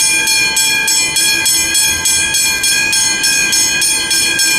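Original level-crossing bell ringing fast and steadily, about three strokes a second, each stroke ringing on into the next: the crossing is warning of an approaching train.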